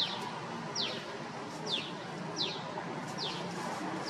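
A bird calling a short, high note that falls in pitch, repeated over and over about once every three-quarters of a second.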